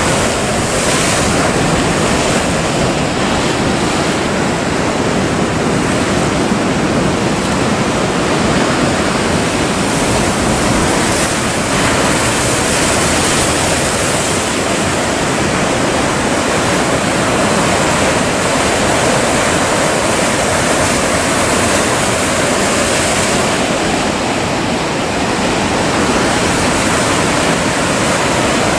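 Heavy Atlantic breakers crashing against a concrete jetty wall and rock breakwater, with foaming whitewater churning. The surf makes a loud, steady rush with no quiet between waves.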